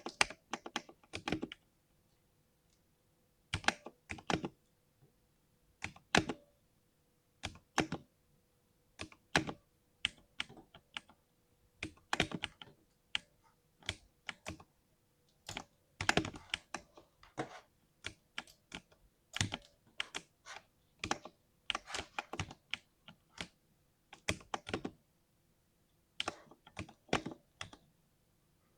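Typing on a 60% mechanical keyboard, a smooth deep 'thock' on each keystroke. The keystrokes come in irregular runs broken by short pauses.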